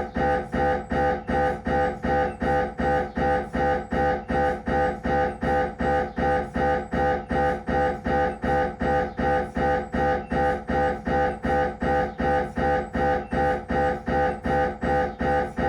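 Siemens Magnetom Avanto MRI scanner running a head-scan sequence: its gradient coils buzz in a steady, unchanging train of pitched pulses, about two and a half a second.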